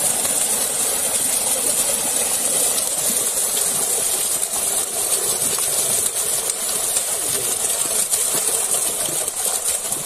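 Many fish crowded in a drawn seine net, thrashing at the surface of shallow pond water and splashing without pause: a steady, even rush of spray.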